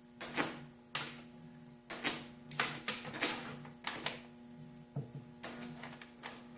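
High-voltage arcs from a microwave oven transformer arc generator crackling in irregular bursts, a few each second, over the transformer's steady hum.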